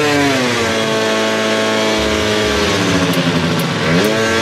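Honda Elite AF16 scooter's two-stroke engine revving. It holds at high revs, drops back after about two and a half seconds, then revs up again near the end, running on a Smart Carb set on the rich side.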